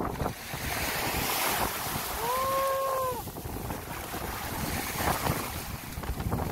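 Shallow surf washing up the sand with wind buffeting the microphone. A little over two seconds in, one held tone sounds for about a second.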